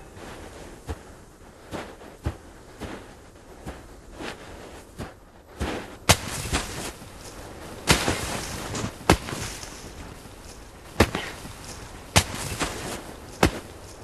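A series of about fifteen sharp, irregular knocks and cracks, spaced unevenly, the loudest coming in the second half.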